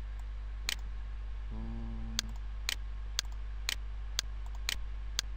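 Sharp ticking at an even pace, about two ticks a second, over a constant low hum. A short hummed note of steady pitch comes about a second and a half in.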